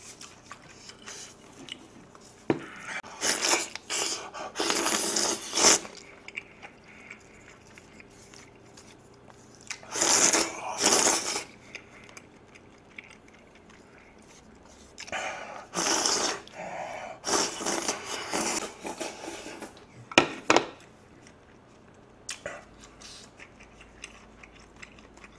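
Several loud wet slurps of jajangmyeon noodles and black-bean sauce from a bowl held up to the mouth, with chewing in the quieter stretches between.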